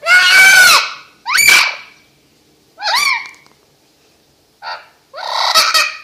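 Blue-fronted amazon parrot screaming: five loud screeches separated by short pauses, the first and last the longest.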